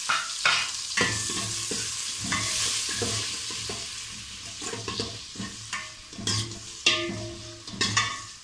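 Sliced onions sizzling in oil in a steel pot, stirred with a steel ladle that scrapes and clinks against the pot at irregular moments, some clinks ringing briefly. The onions are being fried to a light brown.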